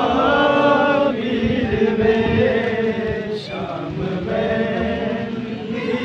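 Men's voices chanting a Muharram mourning lament (noha) together, in long held, slowly wavering notes.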